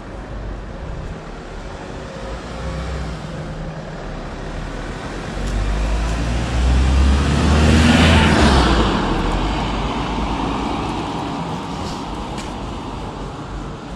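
A car drives past on the road, its engine rumble and tyre noise swelling to a peak about eight seconds in, then fading away.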